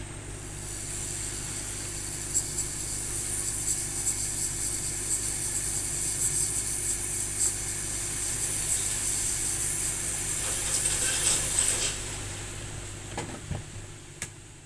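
Steady high hiss over a low electrical hum, with scattered small clicks; the hiss swells in about half a second in and fades away near the end.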